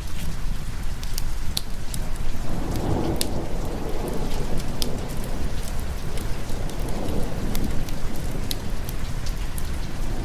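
Steady rain with a long roll of thunder that swells a couple of seconds in and dies away after about five seconds, with scattered sharp ticks throughout.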